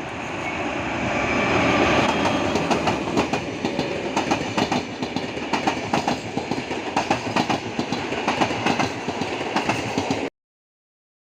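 A train passing close by, its wheels clacking over the rail joints in a quick repeated pattern. The sound swells about two seconds in and cuts off suddenly near the end.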